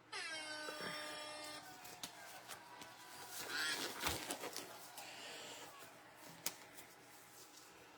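Duck-race game sound effects from a tablet's speaker: a pitched tone sliding down for about a second and a half as the race starts, then fainter mixed effects with scattered clicks.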